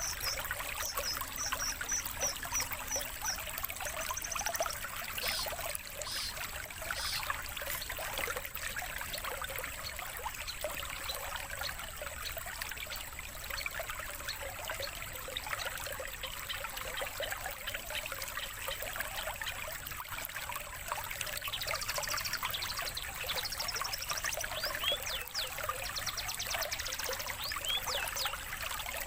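Steady trickling of running water, with quick series of high songbird chirps in the first few seconds and again in the last several seconds, over a thin steady high tone.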